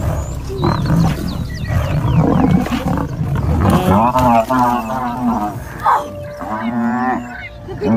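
Lions growling and snarling in a struggle as they pull down a buffalo. From about four seconds in come two long, wavering bellowing calls, typical of a buffalo in distress.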